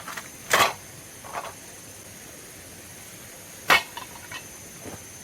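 A few sharp knocks at uneven intervals, the two loudest about three seconds apart, over a steady high hiss.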